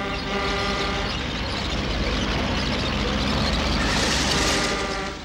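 Cartoon sound effect of a semi truck going by, its horn ending about half a second in, then a rush of engine and road noise that builds to its loudest near the end and cuts off suddenly.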